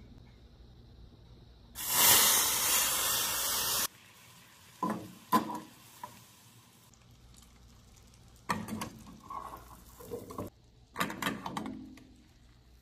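Sugar and water boiling into caramel in an aluminium flan mold on a gas burner: a loud hissing sizzle for about two seconds that cuts off suddenly, then scattered bubbling. Short scrapes and knocks come later, as the pan is swirled by its handle on the stove grate.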